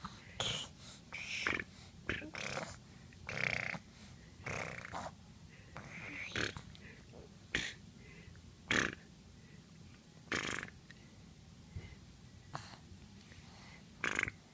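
A person imitating a pig with the mouth: a dozen or so short squeals and snorts, irregularly spaced.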